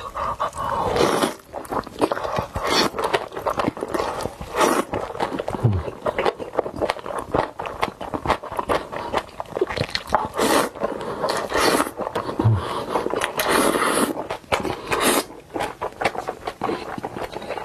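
Close-miked eating sounds: a person chewing and smacking with many rapid wet clicks, and several louder noisy bursts along the way.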